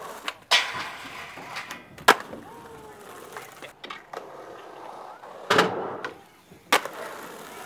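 Skateboard rolling on concrete, with several sharp clacks and slams of the board as tricks are popped and landed, the loudest about two seconds in.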